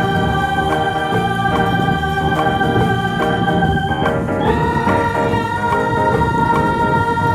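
Background music of held organ chords, moving to a new chord about four seconds in.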